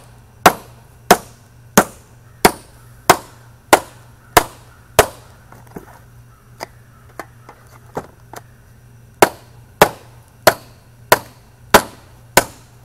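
Hammer striking a screwdriver to cut through the lid of a sealed metal ammo tin: sharp strikes in a steady rhythm of about one and a half a second. The blows go lighter for a few seconds in the middle, then hard again.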